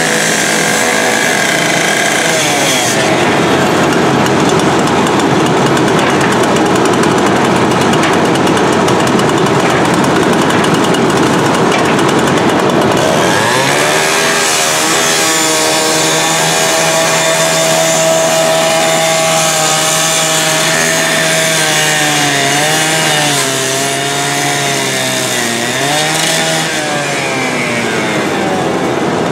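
Gas-powered rotary rescue saw cutting through corrugated sheet metal: a loud, steady grinding whine. About halfway through the engine note becomes clearer and steadier, and later its pitch dips and recovers several times as the throttle and cut change.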